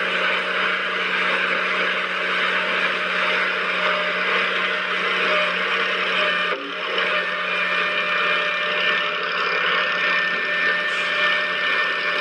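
Small electric motor and gearing of a DIY toy machine running steadily with a whirring hum, briefly interrupted about halfway through. A faint high whine joins it in the second half.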